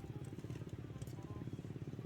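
A small engine running steadily with a fast, even pulse, with music over it.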